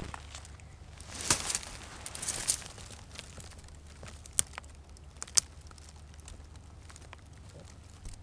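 Rustling of a hunting jacket and the handling of binoculars as they are raised to the eyes, in two swells, followed by two short sharp clicks about a second apart.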